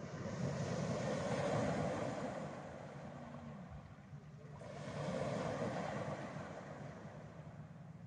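Small Black Sea waves breaking and washing over a pebble beach, surging in twice and fading back in between.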